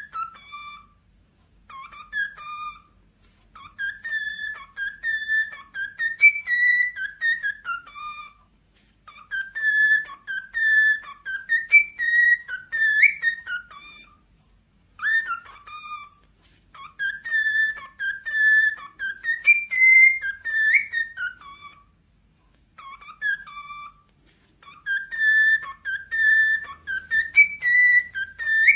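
Cockatiel whistling a warbling song, the same short phrases sung over and over with brief pauses between them.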